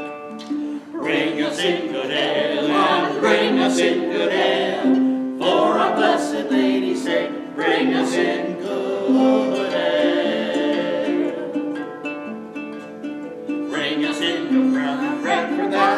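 Small early-music ensemble playing an instrumental piece on harps and other strings: many plucked harp notes over a line of held notes.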